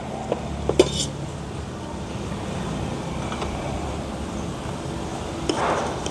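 A few light metallic clinks of a metal cup and spoon in the first second, over a steady hum of road traffic. Near the end, a short scrape of a spoon stirring in a metal cup.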